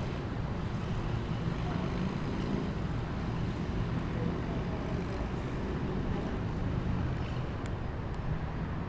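Steady city background noise of distant road traffic, a low, even rumble with no distinct events.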